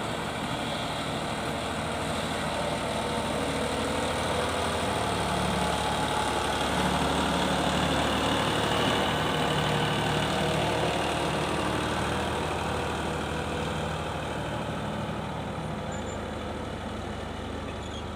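Heavy vehicle engine running steadily, growing louder toward the middle and then fading.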